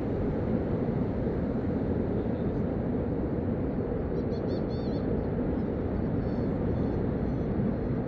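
Steady low rumbling noise without swells, with a small bird chirping in short runs about four seconds in and again near seven seconds.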